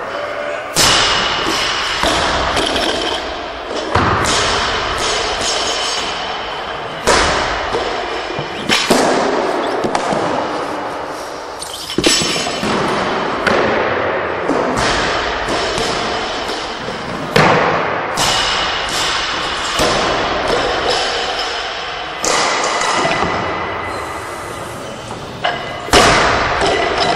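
Heavy barbells loaded with bumper plates crashing down onto lifting platforms, a sharp thud every one to three seconds, each ringing on and echoing in a large hall.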